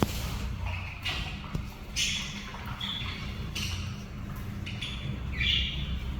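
Small pet parrots giving short, high calls, about six in a few seconds, over a steady low hum.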